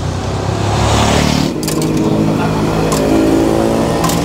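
A motor vehicle engine running close by, with a few short metal clinks from serving tongs against the stainless steel bakso pot.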